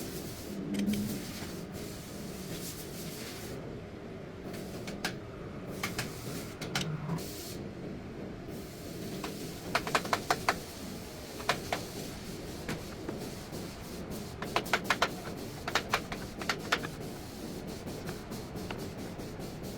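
Sharp metallic clicks and clanks of tools and parts being handled, in short quick clusters, over a steady low background noise.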